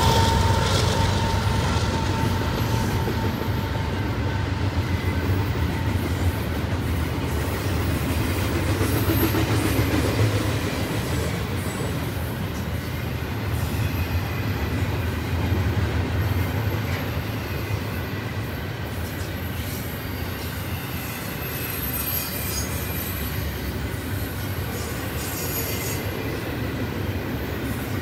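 Double-stack intermodal container cars of a freight train rolling past: a steady rumble of steel wheels on rail with clicking and faint wheel squeal at times, slowly getting a little quieter.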